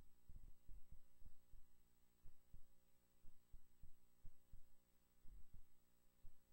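Near silence: a faint steady electrical hum and a thin high whine, with irregular soft low thumps a few times a second.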